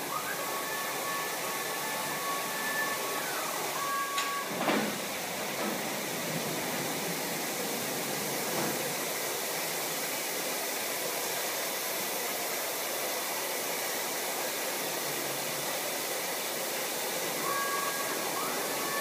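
LeisuWash RL-360 touch-free car wash machine running its wash cycle, a steady hiss of pumps and water spray. Two steady whining tones sound for the first few seconds and again near the end, and a brief falling whine comes about four to five seconds in.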